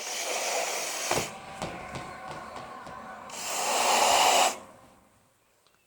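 Air rushing through the neck of a rubber punch balloon, heard as a hiss: one rush at the start, a weaker stretch with a few clicks, then a louder rush of about a second that stops suddenly.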